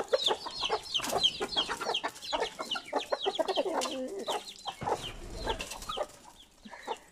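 A flock of chickens clucking and calling, many short calls overlapping, busiest at first and thinning out towards the end.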